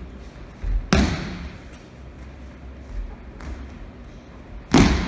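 Two loud slaps of aikido breakfalls on tatami mats, one about a second in and one near the end, each ringing on briefly in a large hall.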